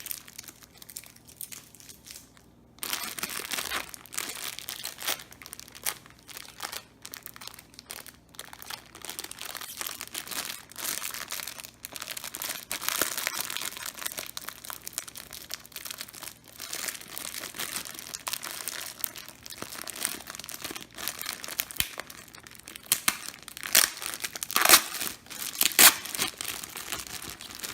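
Plastic packaging bag crinkling and rustling as it is handled, with a few louder crackles near the end.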